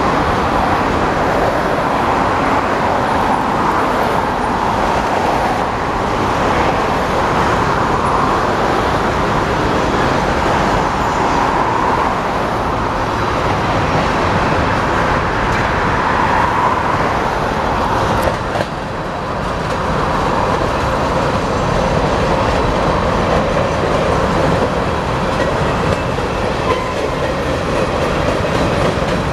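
Freight train of covered hopper cars rolling past, a steady noise of steel wheels running on the rails.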